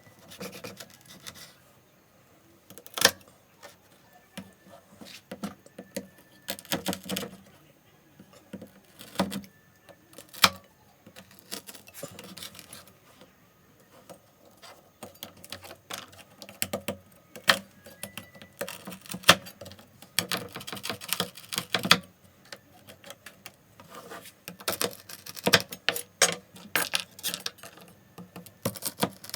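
A metal utensil scraping and clinking irregularly against a pan while working whole peanuts through melted sugar, the peanuts rattling as the mixture is stirred and pressed.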